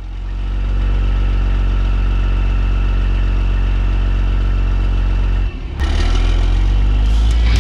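Cat 6NZ (3406E/C15) inline-six diesel in a Western Star 4900SB truck, pulling away under load with a loud, steady engine note. The note builds over the first second, dips briefly about five and a half seconds in, then pulls again.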